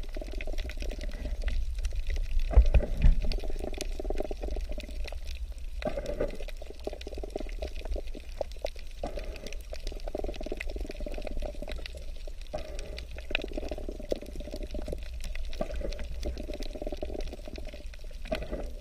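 Underwater sound of scuba breathing: exhaled air bubbles from a diver's regulator gurgling in bursts of a second or two, about every three seconds, over a steady low rumble. A couple of low thumps come about three seconds in.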